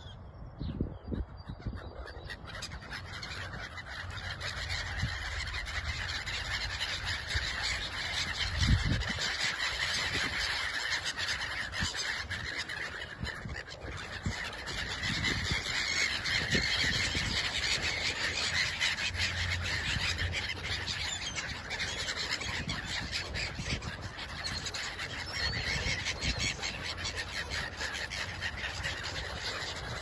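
A large flock of gulls calling, many overlapping cries in a continuous din that swells as the flock lifts and circles over the flooded field. A few low thumps hit the microphone, the loudest about nine seconds in.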